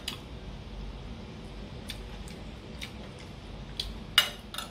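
Metal spoon clinking and scraping against a ceramic plate while eating, a handful of light clicks spread out, the loudest a short scrape a little after four seconds in.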